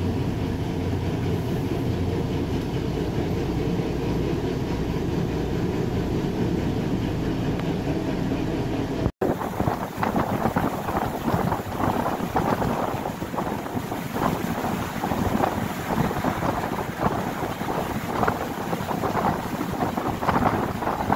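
Diesel engine of an old Uerdingen railbus running, a steady low drone heard from inside the cab. After a cut about nine seconds in, wind buffets the microphone in uneven gusts at the open side window as the railbus rolls along.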